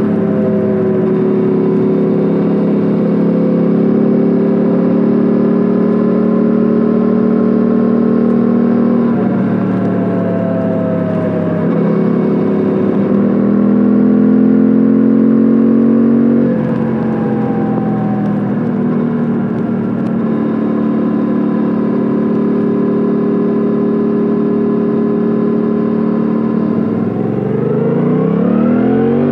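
Suzuki V-Strom 800DE's parallel-twin engine and exhaust running under way on the road. The pitch climbs gently, steps down at a gear change about sixteen seconds in, then holds steady before rising sharply near the end as the engine revs up.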